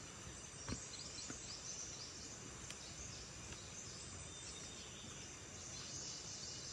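Faint outdoor ambience: a high, steady chorus of insects, with a couple of light ticks in the first second or so.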